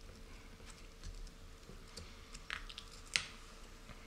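Light clicks and taps of a hex driver and small aluminium parts handled during hand assembly of an RC car chassis, with two sharper clicks near the end.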